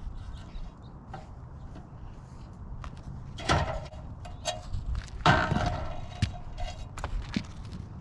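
Steady low wind rumble on the microphone with small clicks and rustles, as rope and a sheet of wire bird mesh are hauled up over the roof edge; two louder scraping rustles come about three and a half and five seconds in.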